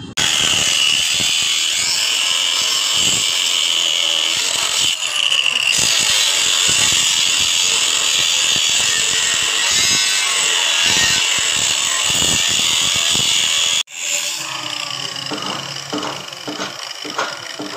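Handheld angle grinder with a cut-off disc cutting through steel: a loud, steady high-pitched whine with grinding hiss. About 14 seconds in it breaks off abruptly, and a quieter, less even grinding sound follows.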